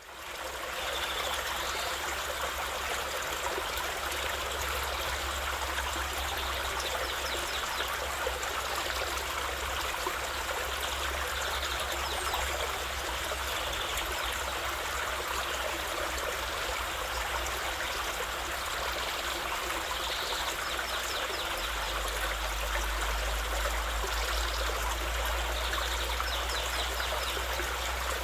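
Running water from a garden water feature, a steady even rush that fades in at the very start.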